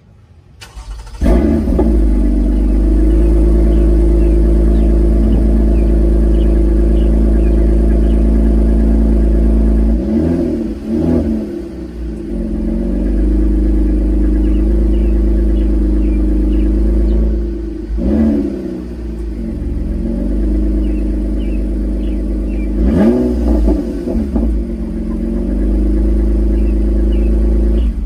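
Toyota Camry TRD's 3.5-litre V6 with a resonator-deleted exhaust, heard at the tailpipes. It starts about a second in and runs steadily, then is revved in three short blips with crackles and pops as the revs fall. It cuts off near the end.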